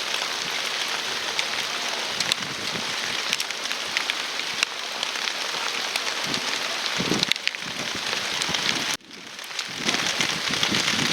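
Heavy rain falling: a steady dense hiss with many small taps of drops close to the microphone. It drops out sharply for a moment about nine seconds in, then comes back.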